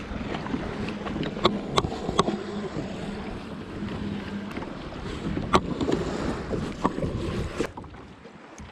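Hobie Mirage pedal kayak under way: water sloshing along the plastic hull and wind on the microphone, with several sharp clicks and knocks from the pedal drive and fittings. It goes quieter near the end.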